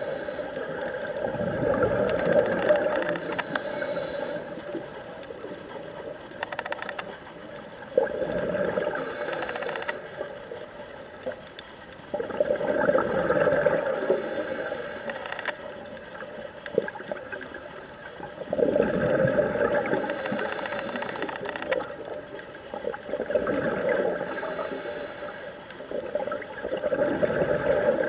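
Scuba diver breathing through a regulator underwater: a short hiss on each inhale and a longer gush of bubbling on each exhale, repeating about every four to five seconds.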